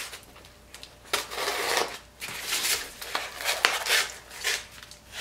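Wrapping being cut and pulled off a boxed item by hand: rustling and scraping in repeated short bursts.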